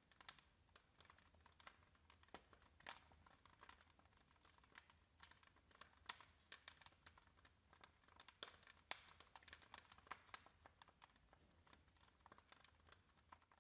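Wood fire crackling faintly, with irregular sharp pops and snaps.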